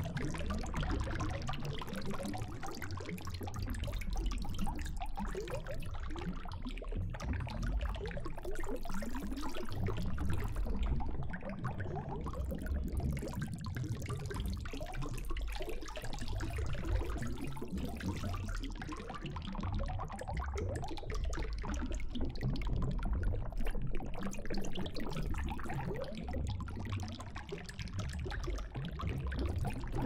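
A small brush scrubbing in the fader slots of a MIDI controller's panel, a continuous rubbing, rustling scrape mixed with handling noise.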